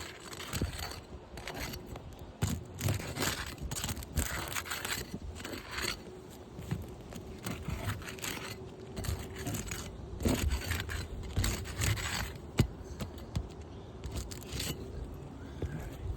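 Repeated scraping and tearing strokes as a damaged asphalt three-tab roof shingle is worked loose, with one sharp knock about twelve seconds in.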